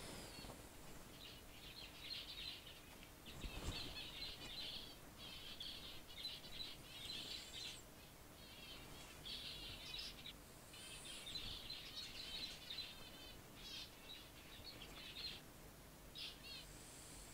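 Zebra finches singing: short bursts of quick, buzzy, repeated high notes, one after another with brief gaps.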